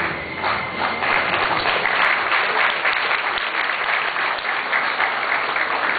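Audience applauding: dense clapping that starts suddenly, swells over about a second, then holds steady.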